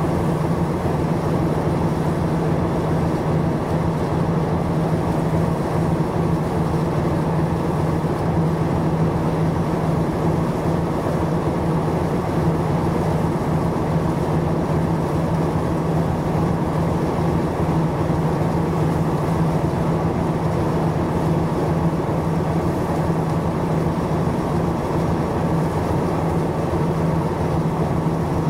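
Boat engine running steadily, heard from on board: a constant low hum over a wash of water and motion noise.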